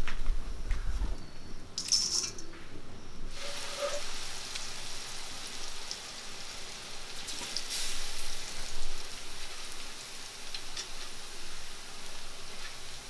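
Food sizzling as it fries in hot oil, a steady hiss that grows fuller a few seconds in.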